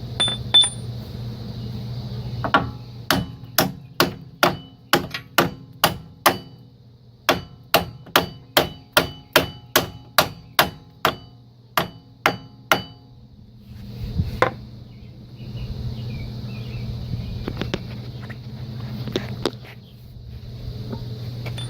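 Hammer striking a steel punch set in the centre of the front CV axle end, driving the axle out of the wheel hub. A run of about twenty sharp, ringing metal blows, roughly two a second, stops and is followed by a few scattered blows.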